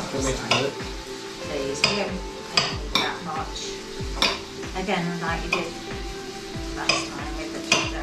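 Kitchen knife chopping vegetables on a cutting board, sharp knocks as the blade strikes the board about every second or so, over background music with a steady beat.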